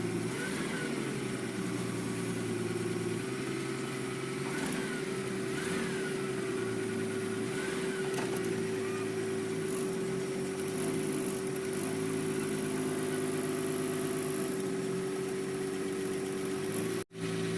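An engine running steadily at a constant speed, a steady hum throughout, cutting out for a moment near the end.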